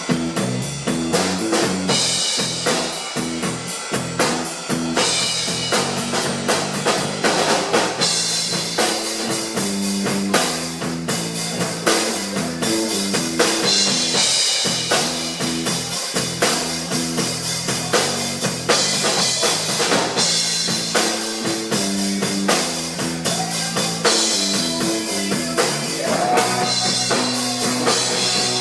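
A rock band playing a warm-up song at a sound check: a drum kit with rimshots and bass drum, with guitar, in a steady beat.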